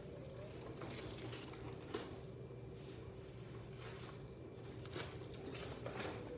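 Household room noise: a few scattered light knocks and taps over a steady low hum.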